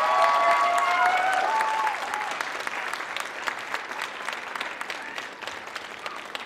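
Audience applauding a dance performance, with high voices cheering over the clapping for the first couple of seconds; the clapping then eases to a steady, lower level.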